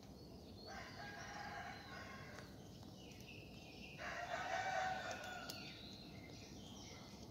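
Rooster crowing twice: a long crow about a second in, then a second, louder crow around four seconds in.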